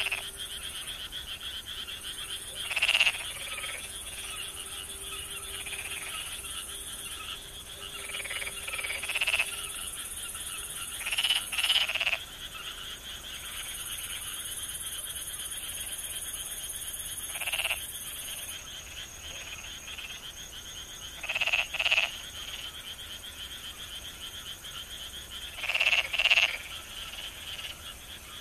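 Frogs calling in a dense chorus: a continuous trilling drone, with louder, nearer croaks breaking out every few seconds, several of them in quick pairs.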